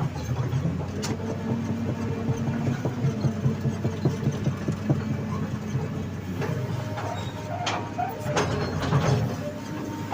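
Sany hydraulic excavator's diesel engine running steadily while the machine works, with a few sharp knocks, mostly near the end.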